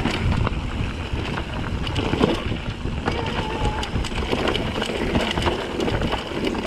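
Wind buffeting the microphone over the rattle and clatter of a mountain bike rolling down a rocky trail, with many small knocks throughout.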